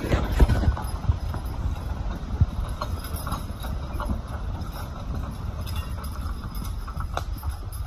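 A pair of work horses walking on a dirt skid road, hooves clopping unevenly. Under it runs a steady low rumble of a logging cart rolling and a poplar log dragging along the ground behind it.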